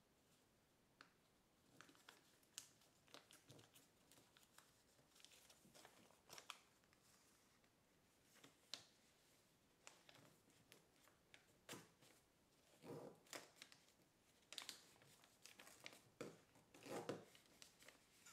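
Faint, irregular crinkling and rustling of kraft paper as it is folded, creased and handled, busiest in the last few seconds.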